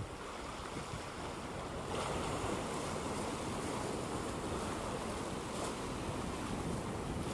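Sea waves washing over flat rock shelves along the shore, a steady rush of surf with wind on the microphone, cutting in suddenly.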